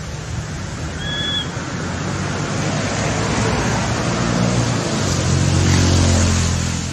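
A steady rush of outdoor noise with a low engine hum that swells to its loudest near the end and then fades, like a motor vehicle passing. There is one short high squeak about a second in.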